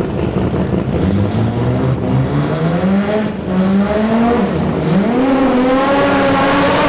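Drag car's engine under full throttle, its pitch climbing in steps, dropping about four and a half seconds in at a gear change, then climbing again and holding high.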